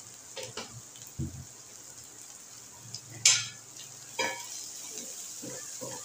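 Chicken, green chillies and garlic frying in a pan, stirred with a spatula: scrapes and clinks against the pan over a steady sizzle. The sharpest clink comes about three seconds in.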